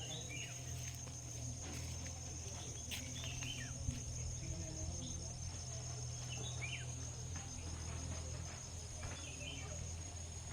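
Insects trilling in a steady, high, continuous tone, with short chirping bird calls now and then and a low steady hum underneath.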